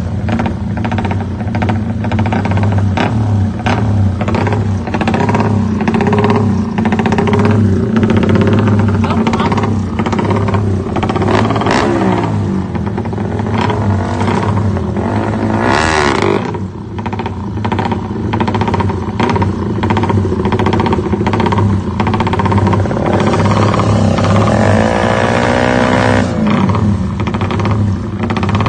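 Drag-racing motorcycle engines revving hard and accelerating, their pitch rising and falling, with a sharp burst about sixteen seconds in.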